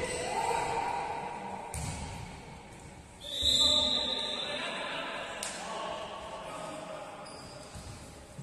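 Indoor sports-hall game sounds: players' voices and ball thuds, with a short, loud, high-pitched referee's whistle blast a little past three seconds in.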